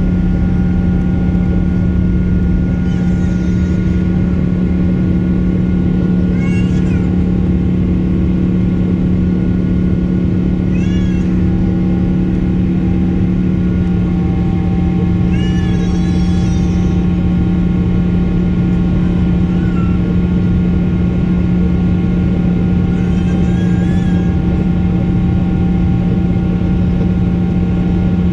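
Steady drone of a jet airliner heard from inside the cabin during the climb after takeoff, with a constant low hum and several fixed engine tones. About six short, high-pitched wavering cries break through it at intervals of a few seconds.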